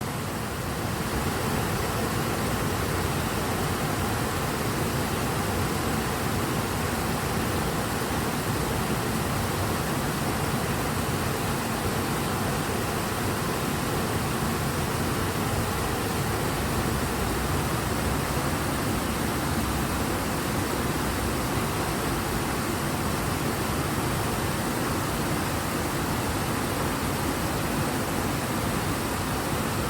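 Fast, high water of a large river rushing strongly: a steady, unbroken noise of flowing water.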